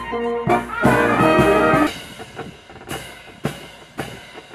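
Military brass band playing loud sustained chords that swell and stop about two seconds in, followed by single drum strikes about every half second.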